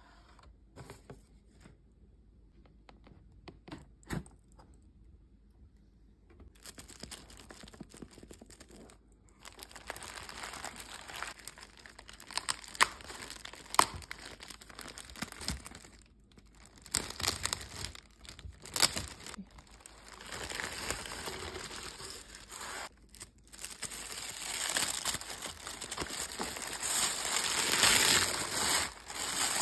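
A few light taps as a cardboard gift box is handled, then from about six seconds in, steady crinkling and rustling of a clear plastic bag and tissue paper being pulled open around a handbag, with sharp crackles here and there, loudest near the end.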